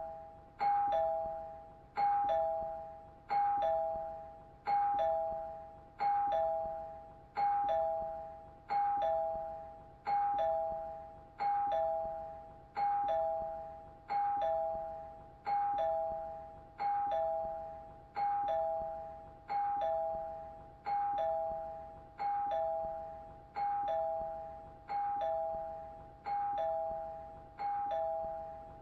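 Doorbell chime ringing over and over, a two-note ding-dong of a higher note falling to a lower one, each pair dying away and repeating about every second and a half.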